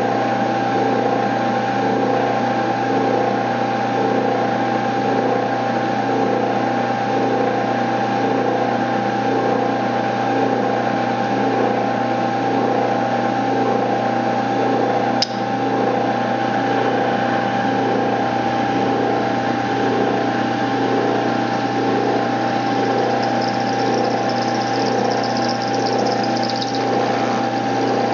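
Milling machine running steadily with a constant whine as its end mill cuts a gas port into a 12L14 steel muzzle brake. A single sharp click about fifteen seconds in.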